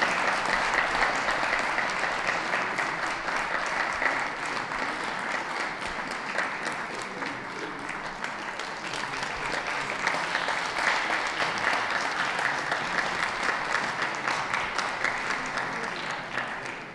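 Crowd applauding continuously, easing off a little midway and swelling again, then cutting off suddenly near the end.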